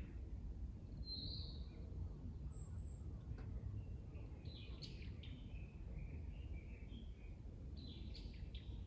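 Wild birds chirping and calling in short phrases, with one clear note about a second in and busier flurries near the middle and near the end, over a steady low rumble.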